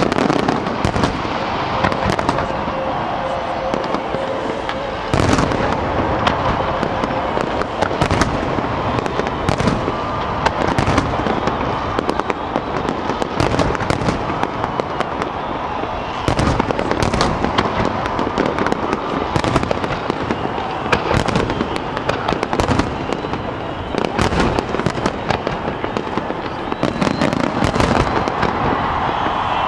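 Fireworks display: aerial shells going off in an irregular run of overlapping bangs, many in quick succession.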